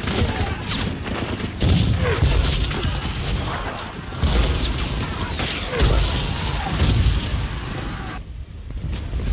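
Battle sound effects from a war film: several heavy explosion booms and rifle fire, with soldiers shouting "Banzai!" in a bayonet charge. The din drops off shortly before the end.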